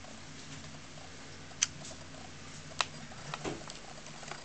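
Oriental shorthair cat biting and chewing chive stalks: a few sharp, crunchy clicks, two loud ones about a second apart, then a quicker cluster of smaller ones near the end.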